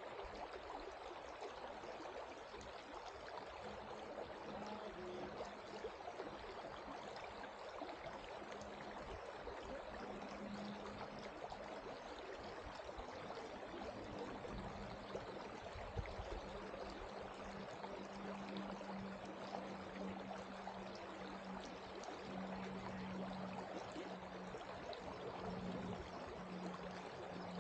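Shallow river water running over rocks and gravel, a steady babble. A low steady hum comes and goes alongside it and grows stronger in the second half.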